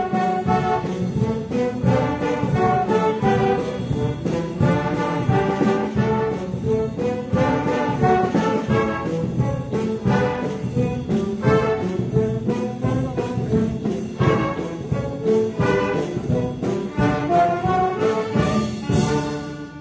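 Youth symphony orchestra of strings and brass playing a piece together. The playing stops at the very end.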